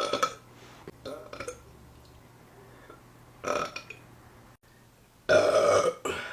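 A woman burping four times in a row: short burps at the start, about a second in and about three and a half seconds in, then a long, loud burp near the end.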